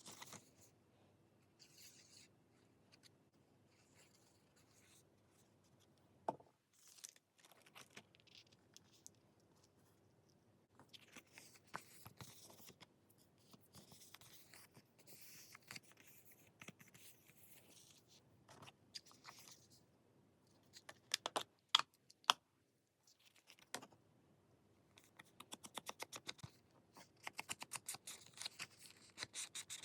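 Scissors cutting paper, with faint rustling of the paper being handled; a few sharper snips about two thirds of the way in and a quick run of short snips near the end.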